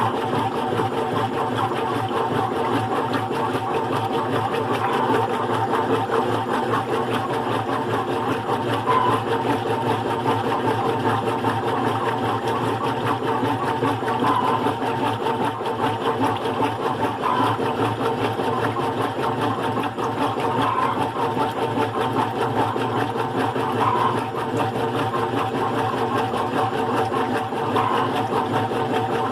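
GE Profile top-load washing machine with an agitator running on its single-speed motor, a steady mechanical hum.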